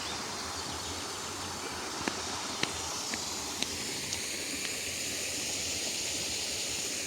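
Steady hissing background noise, like wind on the microphone, with about five short sharp clicks a half-second apart around the middle.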